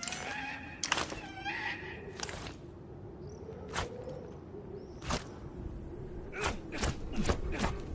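Push dagger being handled: a series of sharp clicks and knocks, several close together near the end. In the first two seconds a wavering high-pitched cry sounds alongside.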